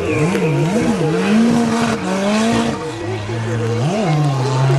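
Race car engine revving hard through a hairpin, its pitch rising and falling several times in quick succession as the throttle is worked and gears change. It settles to a steadier, lower note near the end, with one brief rise just before.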